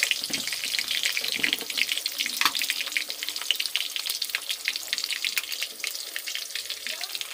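Potato chunks frying in hot oil in an iron kadhai: a steady sizzle with dense crackling throughout.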